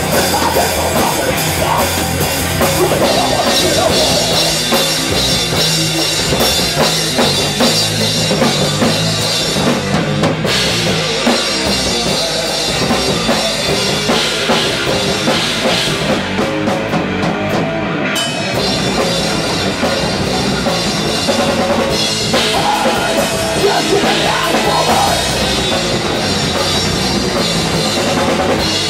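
A rock power trio playing live: drum kit with bass drum and cymbals driving the beat under electric guitar and bass, loud and continuous.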